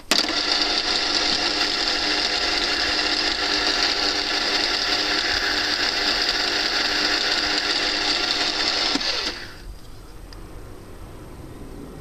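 Small CNC lathe running, its spindle motor and drive giving a steady whine of many tones. It starts abruptly and cuts off about nine seconds in, winding down briefly as the spindle stops.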